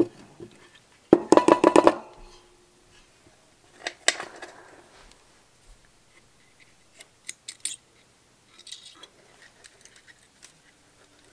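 Small metal instrument-cluster parts from a tractor's tachometer assembly clattering as they are handled on a workbench. A quick metallic rattle with a brief ring comes about a second in, a smaller clatter follows around four seconds, and light clicks of small parts come later.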